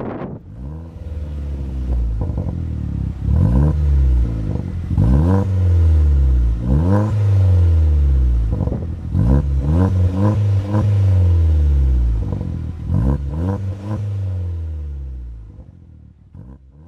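Vauxhall Corsa VXR Nurburgring's turbocharged four-cylinder engine being revved through a 2.5-inch non-resonated stainless steel cat-back sport exhaust with sports cat. The revs rise sharply and fall back, over and over, every second or two, then the sound fades out near the end.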